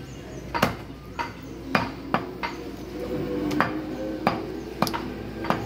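A butcher's cleaver chopping beef on a wooden chopping block. It lands about ten sharp chops, roughly two a second.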